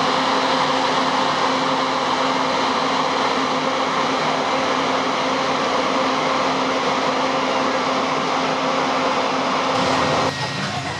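Steady loud rushing din of a moored patrol ship's machinery, with a low hum running through it, cutting off abruptly about ten seconds in.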